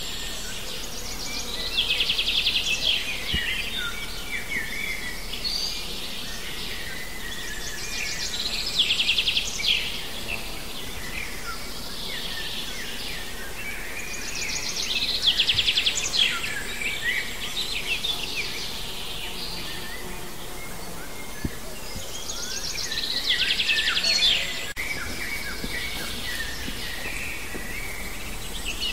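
Songbirds singing over a steady low hiss, with loud phrases made of rapid trills coming four times, about every six to eight seconds.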